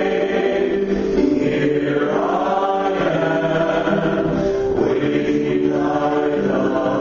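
A group of voices singing a slow hymn together, in long held notes that change pitch every second or so.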